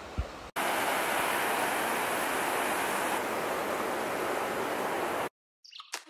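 Steady rush of a river or stream, starting suddenly about half a second in and cutting off abruptly near the end.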